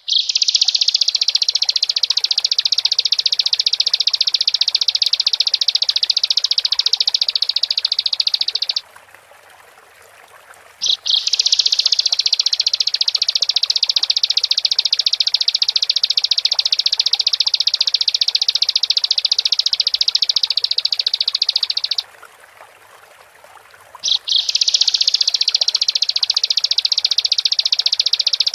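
Bar-winged prinia (ciblek) singing long, high, rapid trills of about nine seconds each, broken by two pauses of about two seconds. Each new trill opens with a brief separate note.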